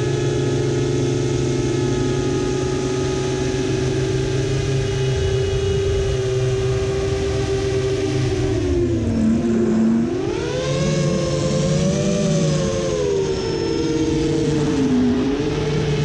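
Brushless motors and propellers of a 7-inch FPV quadcopter (Brotherhobby Avenger 2806.5 1300kv motors) whining steadily, then dropping in pitch about nine seconds in as the throttle comes off. The whine then rises and wavers up and down through several throttle changes before settling.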